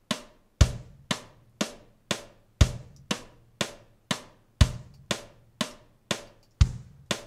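Logic Pro X metronome click played by a Drum Kit Designer drum kit: steady drum hits, two a second (120 BPM), with a deeper, louder hit on the first beat of every four-beat bar and lighter, higher hits on the other beats.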